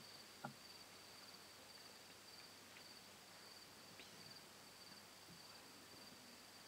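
Faint cricket chirping, a steady high-pitched trill in short repeated pulses, with a single soft knock about half a second in.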